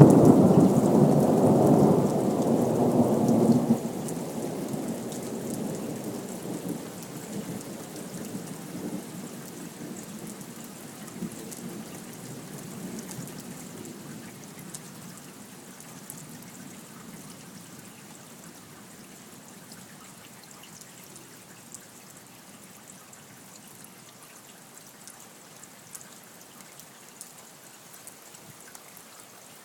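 Thunder rolling and rumbling after a lightning strike, loud at first, dropping off sharply a few seconds in and then slowly dying away. Steady rain patters underneath.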